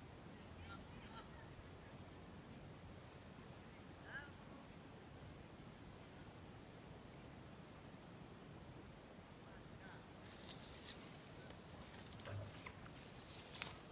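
Steady shrill chorus of insects, several high tones held together without a break, with a few faint clicks and short chirps near the end.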